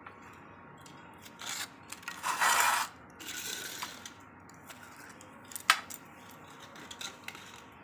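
Handling noises as homemade ice creams are taken out of their moulds: a short rustle about two and a half seconds in, scattered light clicks, and one sharp click about three-quarters of the way through.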